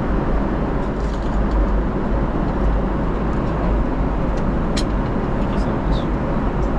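Steady cabin noise of a Boeing 777-300ER in flight: an unbroken, low-heavy rush of airflow and engine noise heard from inside the cabin. A faint click comes about five seconds in.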